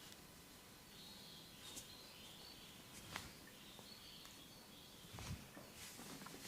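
Near silence with faint, wavering bird chirps in the background and a few soft clicks.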